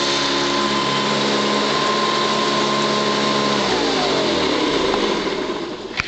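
Hoover Commercial upright vacuum cleaner running steadily, then switched off a little over halfway through, its motor whine falling in pitch as it spins down.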